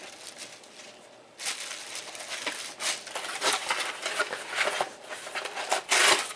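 Packaging crinkling and rustling in irregular bursts as vacuum attachments are unwrapped, loudest just before the end.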